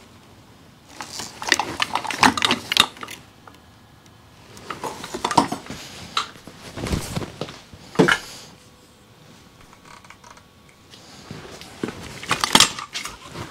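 Scattered bursts of metal clinks, clatter and knocks from parts and tools being handled on a stripped-down motorcycle, with one sharp knock about eight seconds in.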